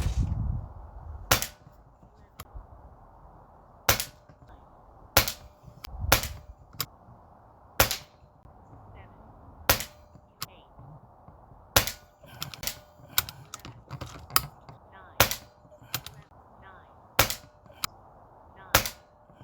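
Repaired Retay T20 PCP air rifle firing a string of shots, a sharp crack every one to two seconds, with fainter clicks in between.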